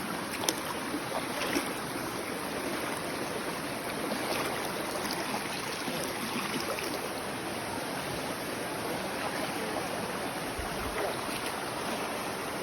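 Forest stream flowing over rocks, a steady rushing of water, with a short click about half a second in.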